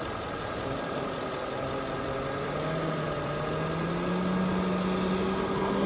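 Semi truck's diesel engine running and slowly rising in pitch as it is given more throttle to drive into floodwater, over a steady hiss.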